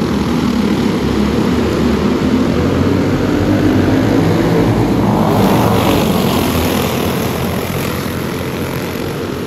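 A pack of clone-engine dirt karts, small single-cylinder four-stroke engines, buzzing at full throttle as they accelerate under the green flag. It gets louder and brighter as the pack passes, about halfway through, then fades a little as they pull away.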